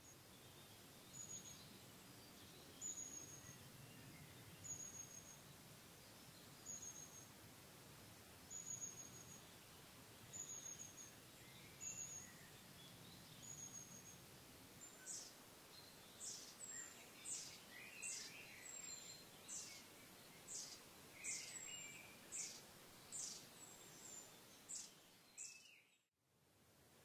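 A bird calling with short, thin, very high-pitched notes, each dropping slightly in pitch, over quiet natural background. The notes come about every second or two at first, then from about halfway through they come faster and are mixed with some lower notes, until the sound cuts off abruptly near the end.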